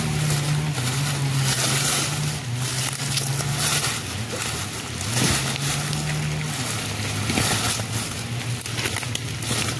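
Komodo dragon tearing at a wild boar carcass: scattered crunching and rustling in dry leaf litter, over a steady low engine-like hum.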